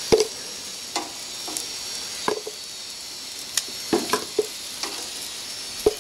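Pork, potatoes and vegetables sizzling on a Napoleon gas grill, a steady hiss broken by irregular sharp clicks and pops, the loudest near the start and near the end.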